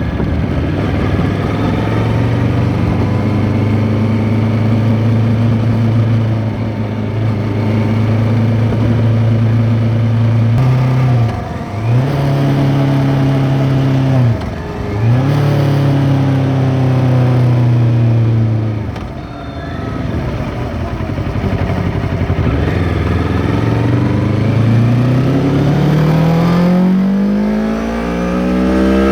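2023 Kawasaki Ninja 650 parallel-twin engine through an Arrow X-Kone exhaust with its dB killer fitted, heard on the move from under the seat cowl. It holds steady revs, with two quick breaks as gears change. The revs then fall away and climb in one long pull, dropping sharply at a gear change near the end.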